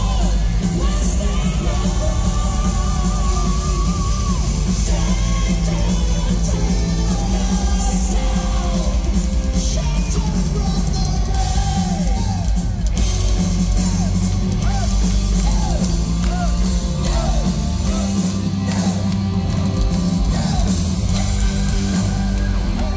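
Live power metal band playing loud, with several male singers over guitars and drums, heard from within the crowd.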